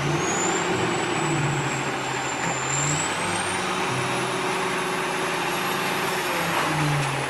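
Front-loading garbage truck running as its hydraulic forks lift a dumpster up over the cab, the engine note rising and falling, with a thin high whine gliding slowly upward.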